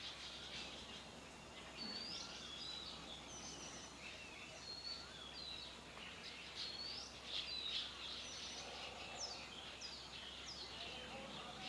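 Several small wild birds chirping and singing: many short chirps and whistled sweeps, some rising and some falling, over faint steady outdoor background noise.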